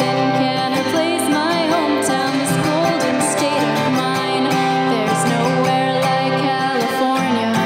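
A woman singing with vibrato while strumming a steel-string acoustic-electric cutaway guitar, played live through a PA.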